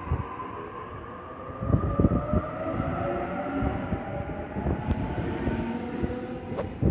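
Sydney Trains Waratah B-set double-deck electric train accelerating away from the platform, its traction motors giving a whine that rises steadily in pitch over the rumble of the wheels. A cluster of low knocks comes about two seconds in.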